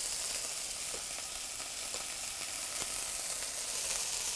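Thin-sliced minute steaks searing in a hot skillet: a steady sizzle with a few faint pops, the meat browning on its first side.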